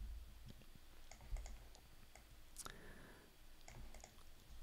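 Faint, scattered clicks of a computer mouse, with one sharper click about two and a half seconds in.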